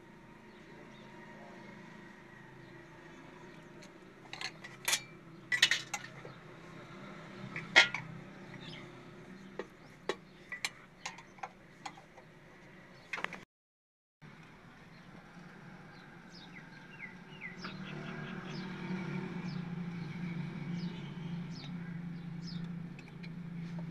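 Scattered sharp metal clinks and clicks of a screwdriver working the hose clamps and fittings on a truck's turbo intake hose. After a brief cut, a steady low hum builds under more light clicks.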